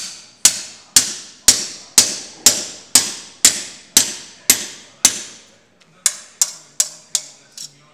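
Hand hammer striking thin copper sheet on a wooden stump block as a copper flower part is shaped. Steady blows come about two a second, each with a brief metallic ring. After a short pause a run of quicker, lighter strikes follows.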